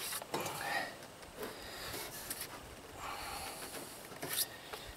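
Soft scuffs and knocks of heavy 6-volt lead-acid batteries being nudged into place on a wooden floor, with a man's breathing and a brief hiss near the end.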